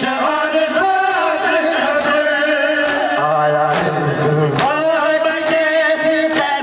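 A male noha reciter chanting a Shia mourning lament into a microphone, his long, wavering sung lines joined by other male voices, with sharp chest-beating slaps (matam) keeping time.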